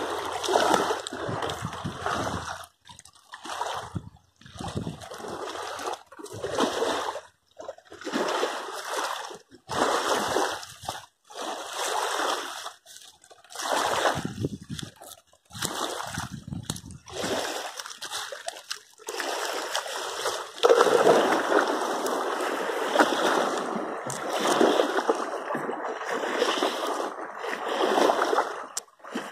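Rushing water of a fast-flowing, swollen river, coming in uneven surges with short sudden dropouts, then steadier and a little louder for the last third.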